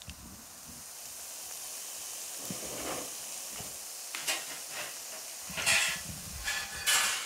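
Pieces of dough deep-frying in hot oil in a pan: a steady sizzle, with several louder crackling bursts in the second half.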